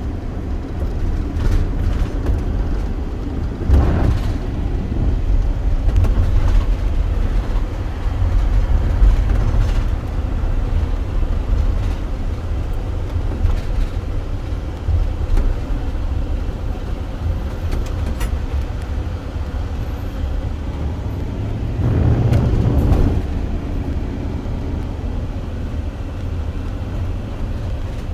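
Steady low rumble of a car driving, road and engine noise, with a louder swell about four seconds in and another one later on.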